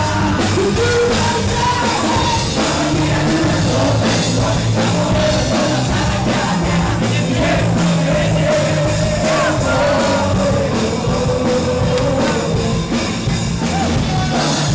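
Rock song with a singing voice over a full band, loud and steady throughout.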